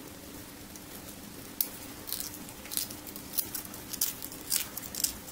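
Pliers tearing open the zinc can of a zinc-carbon cell: a string of irregular short crackles and clicks of thin metal bending and ripping, starting about one and a half seconds in, over a faint steady hum.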